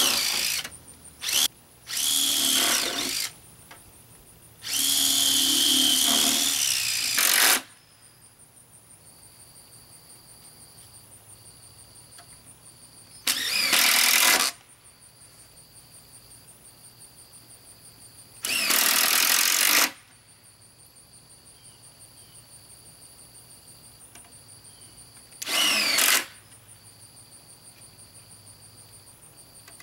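Handheld power drill running in repeated bursts of one to three seconds, with long pauses between them, as it drills or drives into the top edge of a panel. Its pitch climbs and falls within each burst as the trigger is worked.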